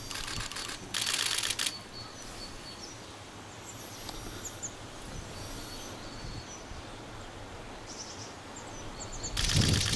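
Two bursts of rapid-fire DSLR camera shutter clicks, one about a second in and one near the end, over a steady faint hiss, with a few faint high bird chirps between.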